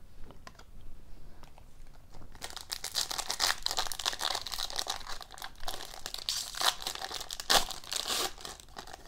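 Foil hockey card pack torn open and peeled apart by hand: dense crinkling of the foil wrapper starts about two seconds in, after a few faint rustles, with one louder crackle about three-quarters of the way through.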